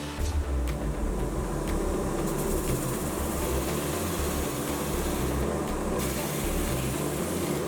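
The rotating brush head of a disc arm grinder deburring table running against sheet metal. It makes a steady grinding hiss and hum while it deburrs and rounds the part's edges.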